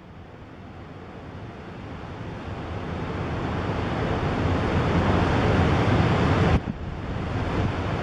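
Pacific Ocean surf breaking on a reef, a steady rushing wash of waves that swells louder over about six seconds, then dips suddenly for a moment near the end before going on.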